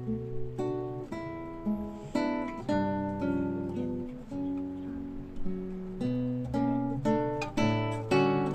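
Background acoustic guitar music: picked and strummed chords, a new chord starting about twice a second and ringing out between.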